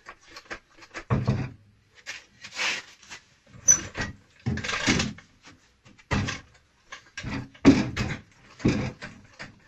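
Jack being pumped to lift a car subframe, in short irregular strokes about once a second.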